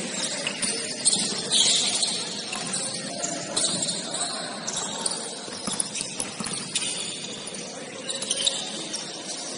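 Basketball game play: a ball bouncing on the court, with scattered sharp knocks over a steady background noise.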